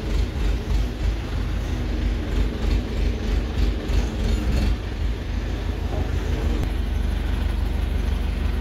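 Heavy diesel machinery engine running close by with a steady low rumble. It is uneven and pulsing for the first five seconds or so, then settles to an even drone.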